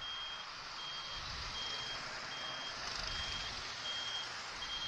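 Motorcycle turn-indicator buzzer beeping in an even rhythm, a little more than one short high beep a second, over road and wind noise while riding slowly in traffic.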